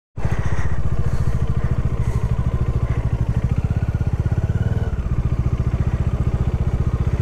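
Motorcycle engine running steadily and close by, with a rapid, even exhaust beat.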